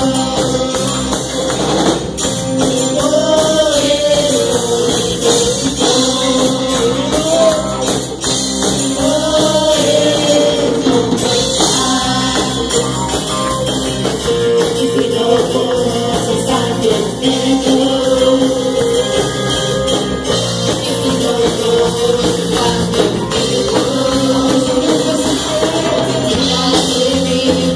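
Live church worship band playing upbeat music, with drum kit and keyboard under a sung melody carried by the worship singers.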